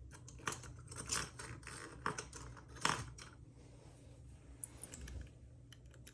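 Lock picks working in the keyway of a Trimax round-body padlock: irregular light metallic clicks and scrapes, the loudest about one and three seconds in, thinning out after about four seconds.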